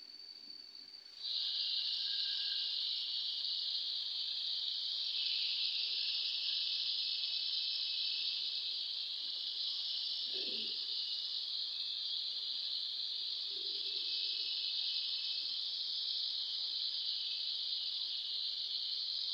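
Cauliflower, potato and tomato pieces sizzling steadily in a hot pan, the high hiss starting abruptly about a second in.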